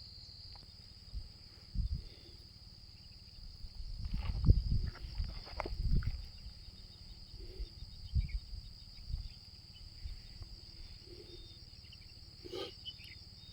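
Insects, crickets or similar, trilling steadily in a high, finely pulsing chorus. Scattered low bumps and rustles come through, busiest around the middle.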